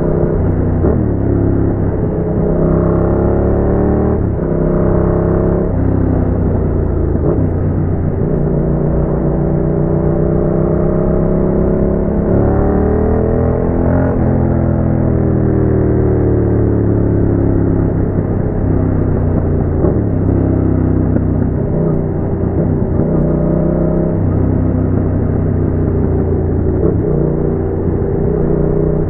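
Yamaha MT-07 parallel-twin engine running through a Roadsitalia aftermarket exhaust, its revs climbing and falling again and again, with several sharp drops in pitch in the first few seconds and a longer climb that peaks about halfway through.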